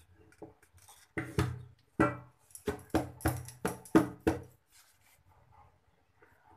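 An upturned stainless steel cake bowl tapped by hand, about ten quick knocks, each with a short metallic ring. The tapping loosens the baked cake so it drops out of the bowl.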